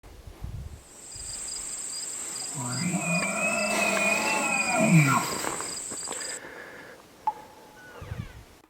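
Bull elk bugling: one long pitched call that wavers and drops off at the end, over a steady high insect-like whine.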